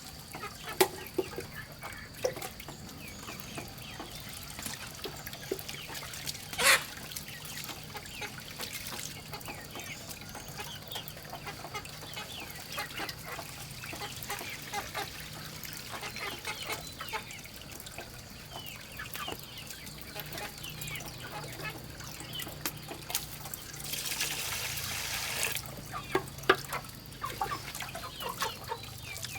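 Chickens clucking, with scattered clicks and knocks, one sharp knock about seven seconds in, and a short rush of noise a little before the end.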